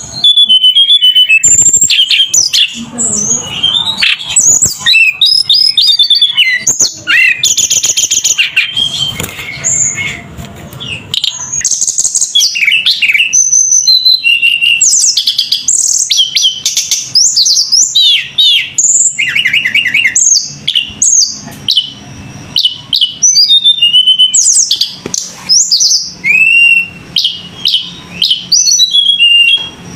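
A bird singing loudly and almost without pause, a varied run of quick chirps, rapid trills and short sweeping notes.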